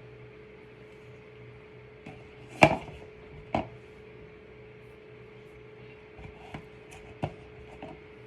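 Sharp clicks and knocks of small hard objects being handled: a loud one about two and a half seconds in, another a second later, then several softer ones near the end.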